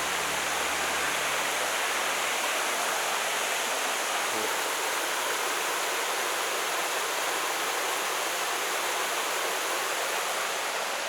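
Rushing water of the West Kill mountain stream at Diamond Notch Falls: a steady, unbroken rush.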